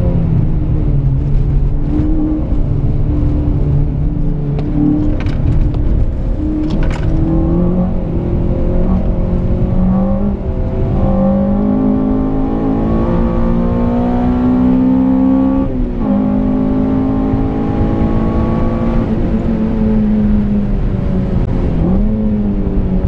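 Honda Civic Type R FN2's K20 four-cylinder engine under load on track, heard from inside the cabin. The revs climb steadily through the middle, drop suddenly about two-thirds of the way in, then dip and pick up again near the end.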